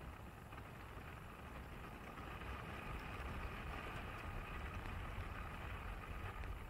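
Open-top car driving along a road: steady wind rush and tyre and road noise over a low rumble, growing slightly louder about two seconds in.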